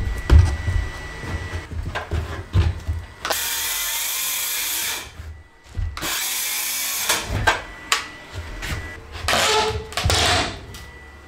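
Circular saw cutting into the floor decking in a few short runs of one to two seconds each, each run a steady blade noise that stops abruptly, with knocks and handling sounds between the cuts.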